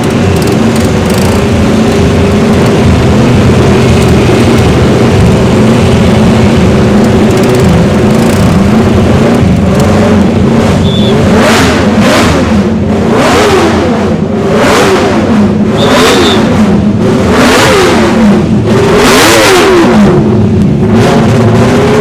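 Classic MV Agusta racing motorcycle's multi-cylinder four-stroke engine running at a steady idle, then revved hard in a series of quick throttle blips from about nine seconds in, the revs rising and falling sharply each time.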